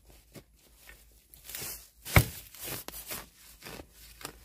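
Irregular rustling and crunching of leaves and undergrowth as someone moves through it, with one sharp knock about two seconds in.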